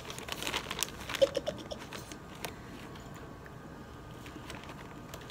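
Clear plastic zip-top sandwich bag crinkling and crackling in the hands as a sandwich is handled inside it, busiest for the first couple of seconds, then only a few faint ticks.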